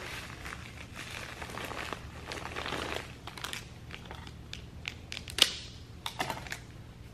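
Clear plastic wrapper crinkling as it is handled, with scattered small clicks and one sharp click about five and a half seconds in.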